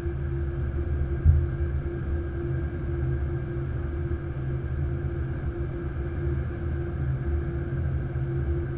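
Steady flight-deck hum and low rumble inside an Airbus A330-200 taxiing slowly with its engines at idle, with a steady tone over it. A single thump about a second in.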